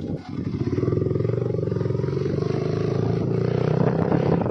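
Motorcycle engine running under way, heard from on the bike. It grows louder in the first second, then holds a steady note with its firing pulses plain.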